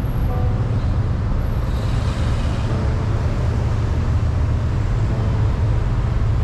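Steady low rumble of vehicle and road traffic noise, with a brief rise in hiss about two seconds in.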